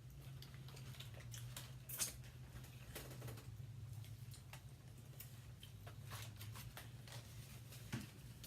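Faint clicks and taps of a meal being eaten, utensils and food containers handled, the sharpest about two seconds in and near the end, over a steady low hum.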